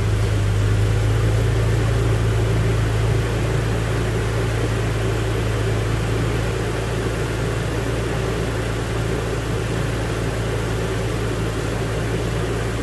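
Toyota Tacoma engine idling steadily just after being started, a little louder in the first seconds and then settling.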